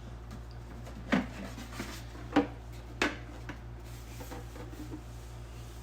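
A few light knocks and clicks from handling the pieces of a replica Darth Vader helmet, about a second, two and a half and three seconds in, with fainter taps between, over a steady low hum.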